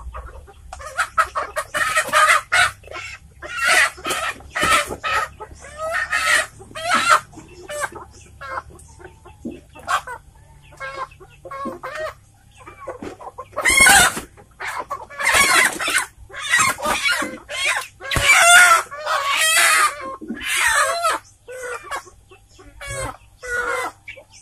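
Village chickens squawking in repeated loud bursts while being caught by hand and held by the legs, the alarm calls of handled birds; the loudest squawks come a little over halfway through.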